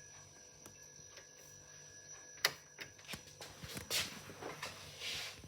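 Handling noise while hooking up a synthesizer: one sharp click about halfway, then a few brief rustles, over a faint steady electrical hum.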